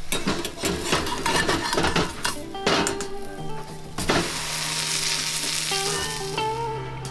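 Buttered bread sizzling as a sandwich fries in a frying pan, with sharp crackles and clicks over the first few seconds. Background music with held notes and a low bass comes in about halfway through.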